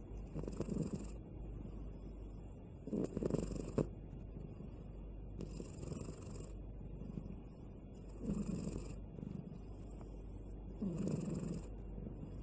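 Sleeping cat snoring, one rasping breath about every two and a half seconds, five in all.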